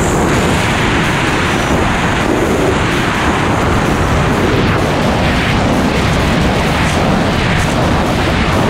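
Loud, steady rush of wind buffeting the camera microphone in skydiving freefall.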